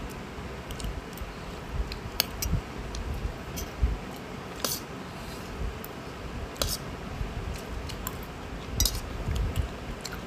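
A person eating close to the microphone: scattered small clicks and light clinks, soft low thumps, and a few short crisp noises about four and a half, six and a half and nine seconds in.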